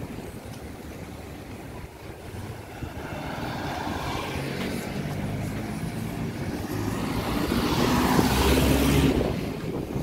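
A car drives past close by. Its engine and tyre noise build over several seconds, peak about eight to nine seconds in, then fall away quickly.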